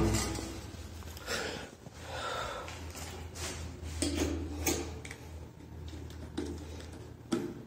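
Quiet room with a steady low hum and a few faint, scattered taps and rustles of handling.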